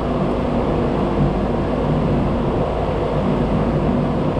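An engine running steadily, a continuous low, even drone.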